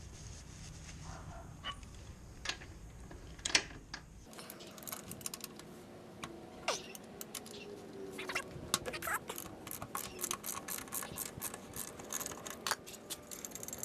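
Hand tools on the rear axle nut: a few sharp metal clinks, then a long run of quick clicking with short squeaks as the nut is unscrewed with a wrench.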